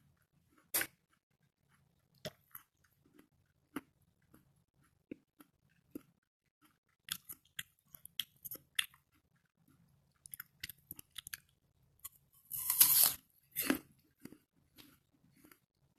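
Crisp crunching of a fresh apple being bitten and chewed close to the microphone: scattered sharp crackles, coming in quick clusters, with the loudest, longest crunch about three seconds before the end.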